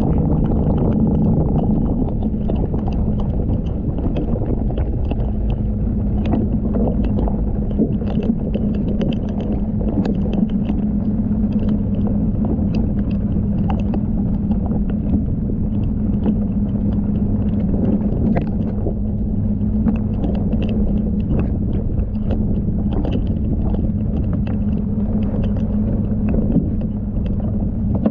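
Evinrude outboard on a bass boat running flat out, a steady engine tone over a heavy rumble of wind and water, with many short sharp ticks scattered throughout.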